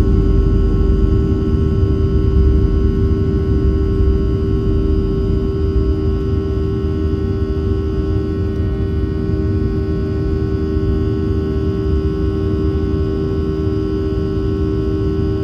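Jet airliner's turbofan engines at takeoff thrust, heard inside the cabin over the wing during liftoff and initial climb: a loud, steady engine hum with a strong whining tone over a deep rumble, the rumble easing a little after about four seconds.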